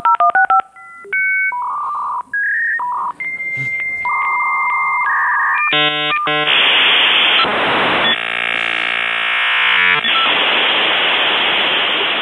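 Dial-up modem connecting: touch-tone digits are dialed in the first half second, then come steady single tones and the answering modem's long tone. From about six seconds in there is a loud hissing screech with layered beeps as the two modems negotiate the connection.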